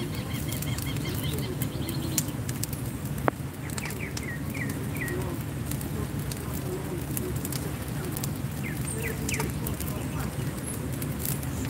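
Wood cremation pyre burning, with scattered crackles and a sharper pop about three seconds in, over a steady low background noise. A bird calls in short quick series of chirps a few times.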